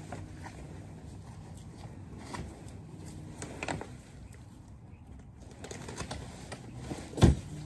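Fabric of an insulated Eskimo ice fishing hut rustling and flapping as it is unfolded and pulled out by hand, with scattered knocks and one loud thump near the end.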